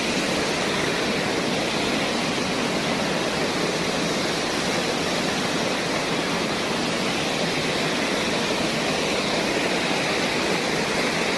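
Waterfall: the steady, even rush of falling water, unchanging in level.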